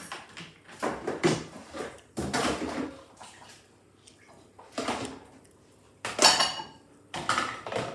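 Dishes and cutlery clattering as they are put into a dishwasher: about five separate bursts of handling noise. The loudest, about six seconds in, has a short ringing clink.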